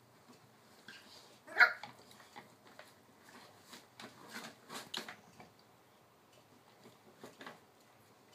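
Maltese puppies scrabbling and playing around a resting Weimaraner on a cushion, with scattered light clicks and rustles. One short, sharp puppy yip about a second and a half in is the loudest sound.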